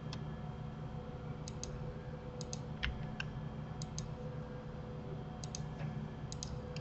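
Computer mouse buttons and keyboard keys clicking: scattered sharp clicks, many in quick pairs as a button is pressed and released, about a dozen in all, over a steady low hum.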